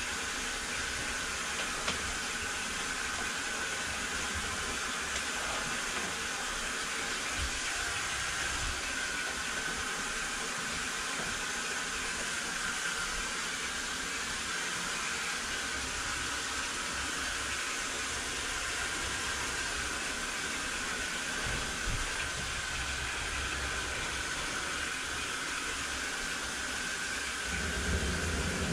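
Sewer jetter running: a steady hiss and rush of high-pressure water driving a Warthog root-cutting nozzle through the drain line. It gets louder, with a low rumble, near the end.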